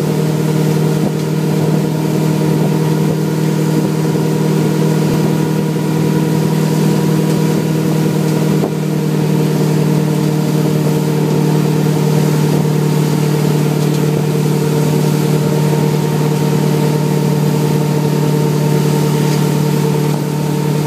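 A wakesurf boat's engine running at a steady speed, a constant hum, with the rush of the churned wake water behind it.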